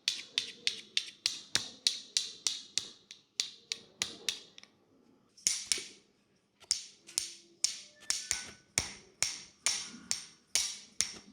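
Rhythmic sharp hand strikes of a head massage, about three a second, with a break of about a second midway before the rhythm resumes.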